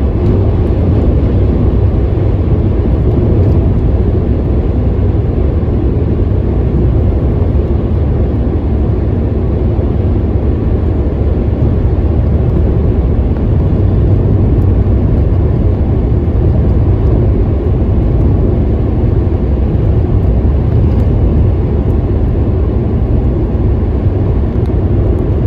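Steady low rumble of a car driving along an open road, heard from inside the cabin.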